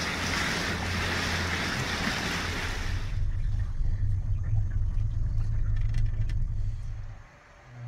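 Boat's outboard motor running steadily at low speed. For the first few seconds, wind and water noise on the microphone lie over it. After that it is heard muffled from inside the cabin with a few light clicks, and it drops away near the end.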